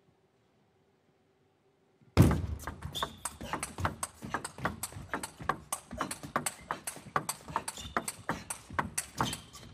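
Table tennis rally: the plastic ball clicks off the bats and the table in quick succession, starting about two seconds in after near silence during the serve preparation, with brief squeaks of shoes on the court floor.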